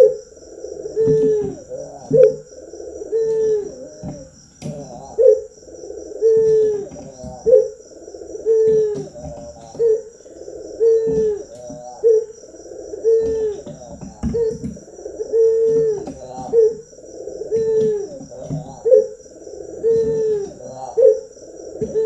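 Barbary dove (ringneck dove) cooing in its bowing display: a low, hooting two-part coo, a longer note then a short accented one, repeated steadily about every two seconds.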